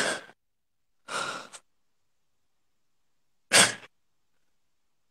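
A man crying in three short, breathy sobs, one at the start, one about a second in and one about three and a half seconds in, with dead silence between them.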